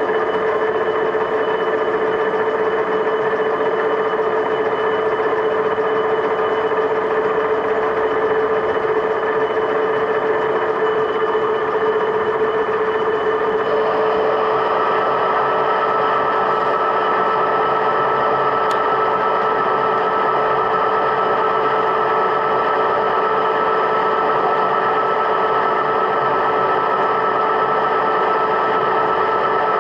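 Machine tool running steadily with a whine made of several steady tones; about 14 seconds in the whine changes to a higher tone.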